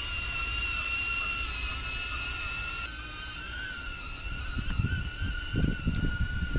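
DJI Avata FPV drone's propellers running with a steady high whine, its pitch stepping up slightly about three seconds in. Irregular low rumbles join in during the second half.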